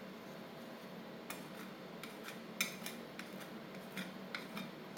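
Metal spatula striking and scraping on a stainless steel rolled-ice-cream cold plate through a thin frozen sheet: a string of short sharp clicks, starting about a second in and loudest about two and a half seconds in, over a steady low hum.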